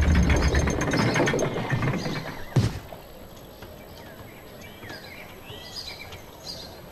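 Busy clattering of clicks and knocks over a low rumble, ending in a single sharp thump about two and a half seconds in; after that only faint background noise.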